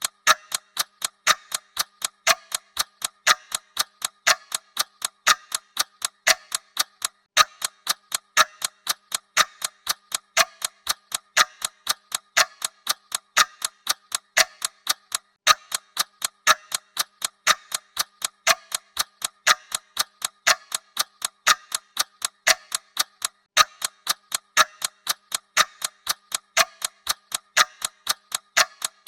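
Clock ticking sound effect: sharp, evenly spaced mechanical ticks at about three a second, keeping a steady rhythm throughout.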